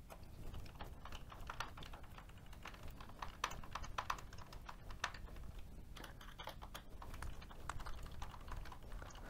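Screwdriver driving a small screw through a brass plate into a hardwood block: a faint, irregular run of little clicks and ticks. Tightening the screws sets how hard the springy brass plate presses on the stainless steel ball.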